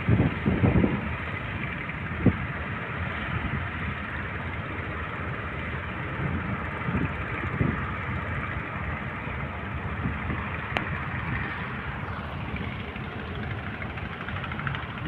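Boat at sea in rough water: a steady rushing noise with a few low thumps, the loudest in the first second and another about two seconds in.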